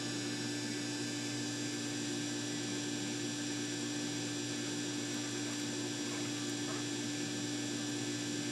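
Steady background hum of machinery with one constant low tone and a hiss over it, unchanging throughout.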